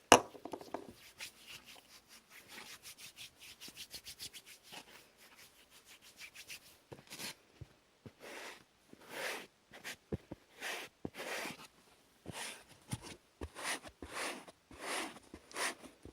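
Close-up rubbing and scratching on hair. A fast run of fine strokes for several seconds is followed by slower separate strokes.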